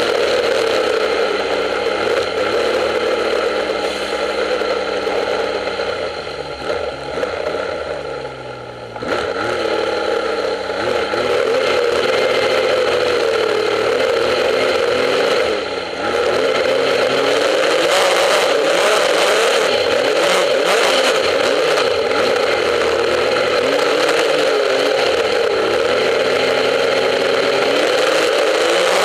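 Snowmobile engine heard close from the hood while riding, its revs rising and falling with the throttle. The engine eases off for a few seconds around six to nine seconds in, then picks up sharply, with a brief dip again around sixteen seconds.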